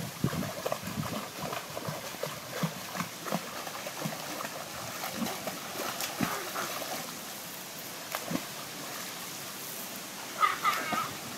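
Pool water splashing and sloshing as swimmers kick and paddle, with many short irregular splashes. A brief high-pitched voice calls out near the end.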